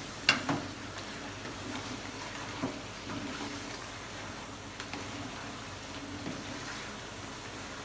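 Masala and fried chicken sizzling in a nonstick wok while a wooden spatula stirs them. The spatula knocks against the pan sharply just after the start, again at about two and a half seconds, and with lighter taps later.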